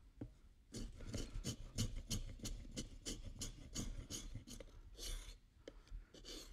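An edged woodworking hand tool cutting and shaving the wood of a laminated gun stock in short scraping strokes, about three a second, followed by two longer strokes near the end.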